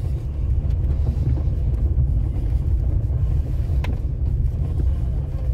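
A vehicle driving slowly over a rough dirt track: steady low engine and road rumble, with a single sharp knock about four seconds in.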